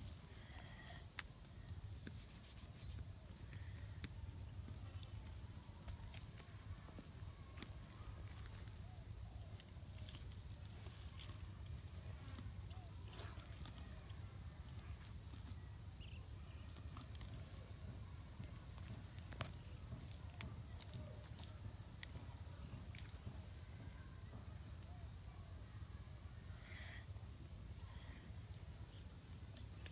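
Steady high-pitched chorus of insects, with faint scattered ticks and a low steady rumble underneath.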